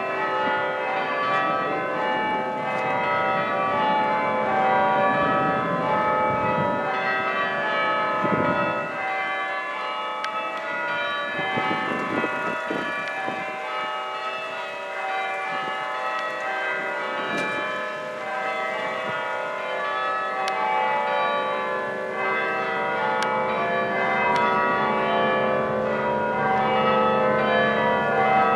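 Six church bells change ringing treble bob minor: a continuous stream of strikes, the bells sounding one after another in a constantly shifting order.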